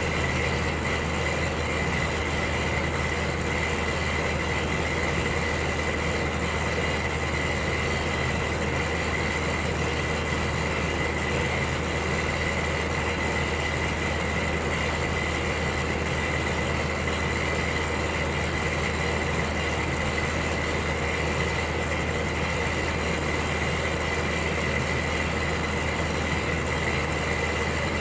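Electric heater running, a steady low hum under an even rushing noise with a thin high whine.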